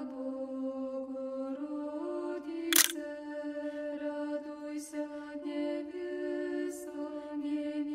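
Choir singing slow chant in harmony: sustained chords held for a second or two, then shifting to new notes. A brief, sharp, click-like sound cuts through about three seconds in.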